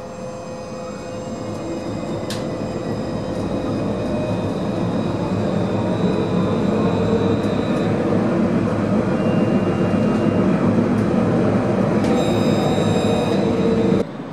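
Madrid metro train heard from inside the carriage, its running noise and motor whine growing louder over the first several seconds as it pulls out of an underground station, then holding steady. The sound cuts off abruptly near the end.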